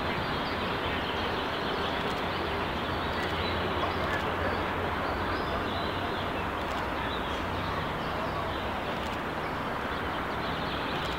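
Steady outdoor background noise: an even hiss and low rumble, with a few faint clicks.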